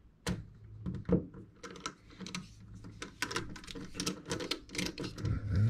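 Irregular light clicks and taps of a multi-tool's flathead screwdriver turning out the last screw of a screw-down card holder, the clicks coming thicker in the later part.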